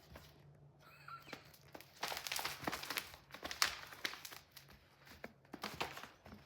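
Irregular crinkling and rustling of Christmas wrapping as cats rummage in it, busiest from about two to four seconds in.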